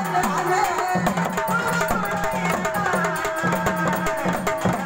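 Gondhal folk song: a voice sings a melody over a pitched hand drum beating a quick, steady rhythm.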